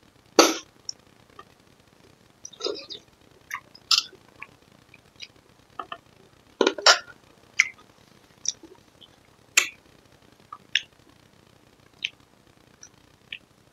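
Close-up eating sounds from someone eating lod chong, a jelly-noodle dessert. Short wet mouth clicks and smacks come irregularly, with a few louder slurps or smacks about half a second, 2.7 s, 6.8 s and 9.6 s in.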